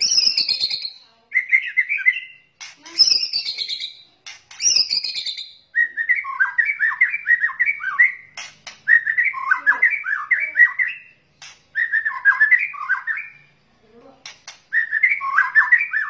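White-rumped shama (murai batu) singing: a few falling whistled phrases, then bursts of fast, jumping notes with short pauses between them.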